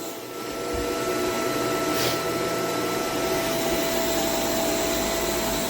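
Shark LA702 Rotator Lift-Away upright vacuum running steadily over carpet, a constant airflow rush with a steady motor whine. There is a low bump just under a second in.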